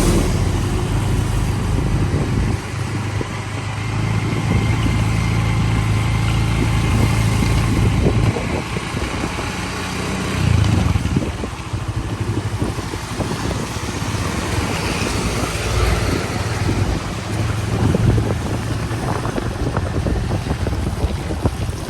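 A motor vehicle driving on a road: a steady engine drone that shifts in pitch now and then, with road and wind noise.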